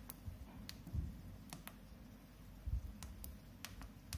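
Key presses on the CEMB B9 balancing machine's control-panel keypad: about nine light, irregularly spaced clicks, with two dull low thumps, the loudest sounds, about a second in and near the three-quarter mark.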